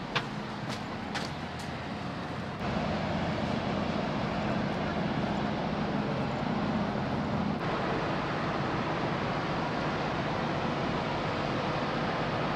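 Steady drone of a large moored car ferry's machinery, a low hum under an even rushing noise, growing louder about two and a half seconds in. A few sharp clicks come near the start.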